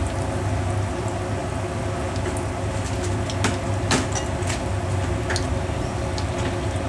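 Floured meat pieces sizzling in hot oil in a frying pan, with scattered sharp pops and crackles, the loudest about three and a half to four seconds in. A steady low hum runs underneath.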